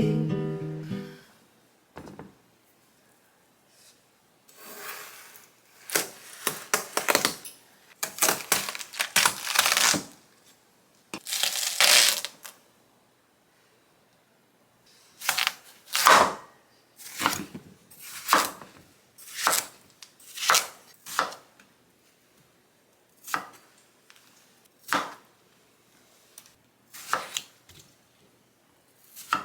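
Kitchen knife chopping food on a cutting board: a busy run of knocks, then slower single strokes about one a second.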